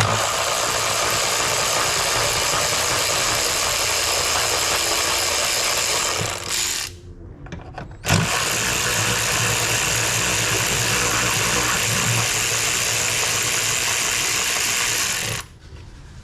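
A handheld power tool's motor runs steadily in two long stretches of about six and seven seconds, each stopping abruptly. It is driving out screws that hold down an air box.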